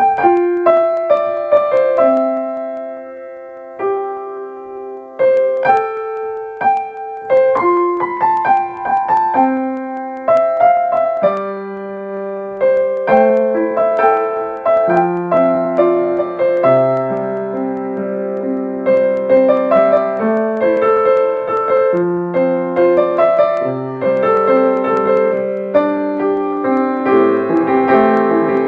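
Background piano music: a gentle solo piano piece, a sparse single-note melody at first, filling out with chords and low bass notes about halfway through.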